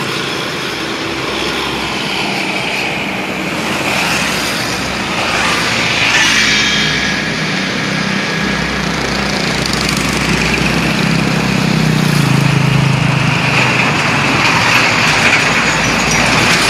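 Road traffic passing on a highway: engine and tyre noise from passing vehicles. A heavy cargo truck's engine grows louder as it passes close near the end.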